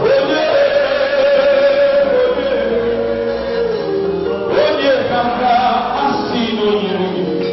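A congregation singing a gospel song together, holding long notes.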